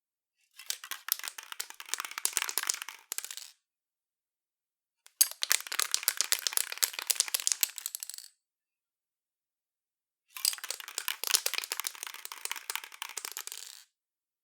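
Aerosol spray paint can shaken by hand, its mixing ball rattling rapidly inside. Three bouts of about three seconds each, with short silent pauses between them.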